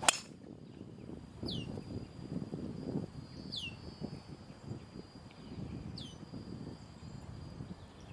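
A driver striking a golf ball off the tee: one sharp crack right at the start. Then a low wind rumble on the microphone, and a bird repeating a short falling call about every two seconds.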